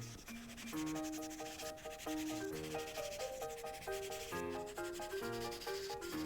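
Prismacolor marker tip rubbing on paper in quick repeated strokes while colouring, over light background music with a plucky stepping melody.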